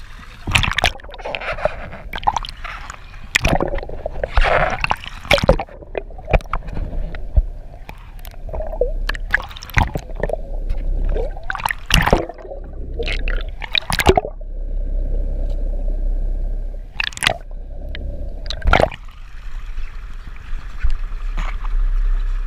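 Sea water sloshing and gurgling around a camera at the waterline of a boat's hull as it dips in and out of the surface, with many irregular sharp splashes.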